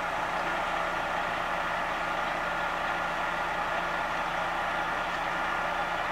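Engine of a fire truck idling: a steady, unchanging drone with a low hum underneath.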